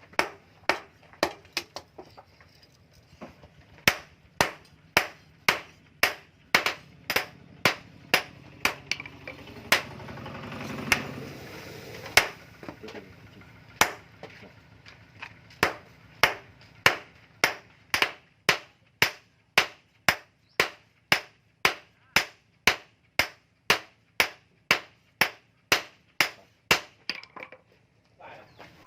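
Hand hammer striking hot bearing steel on an anvil in steady forging blows, about one and a half strikes a second, each with a short metallic ring. A low rushing noise swells briefly around ten seconds in.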